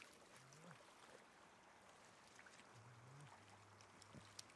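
Near silence: faint splashing and trickling of shallow floodwater as fish are grabbed by hand, with a few light ticks and a faint low hum from a little past the middle.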